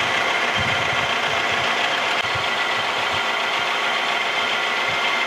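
Vertical milling machine running with its end mill cutting a slot in steel angle iron as the table is fed in about an inch. A steady mechanical running sound with a steady high whine from the cut.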